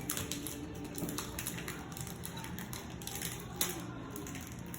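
Foil booster-pack wrapper crinkling and clicking as it is handled and worked open, with one sharper tap about three and a half seconds in.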